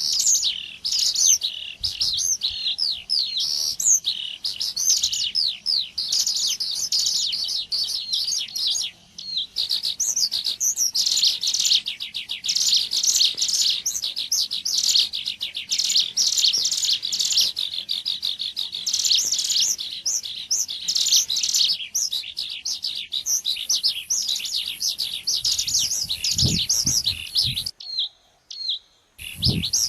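Ciblek gunung (a prinia) calls, used as a trapping lure: a dense, unbroken stream of rapid high chirps and trills, pausing briefly about a third of the way in and dropping away just before the end.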